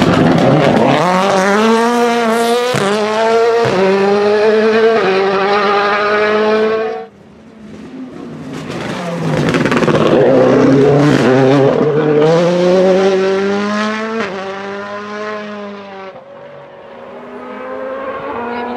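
Ford Fiesta WRC rally cars' turbocharged four-cylinder engines accelerating hard, revving up through the gears in rising steps with a short break at each upshift. The sound cuts off suddenly about seven seconds in, a second car passes with the same run of upshifts, and near the end a more distant car is heard accelerating more faintly.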